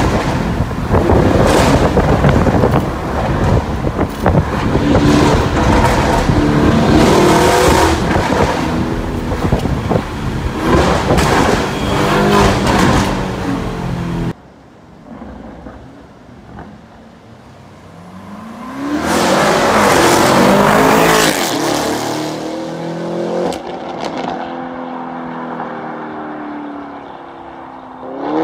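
Lamborghini Urus twin-turbo V8 through a Fi valvetronic exhaust, first heard from inside the cabin accelerating hard through the gears, the note climbing repeatedly. Then it is heard from the roadside as the SUV drives past, rising as it approaches, loudest about twenty seconds in, and falling in pitch as it pulls away.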